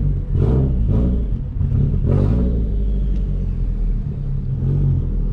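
Straight-piped 2004 Subaru WRX STI's turbocharged 2.5-litre flat-four engine rumbling at low speed through its open exhaust, swelling a few times with light throttle.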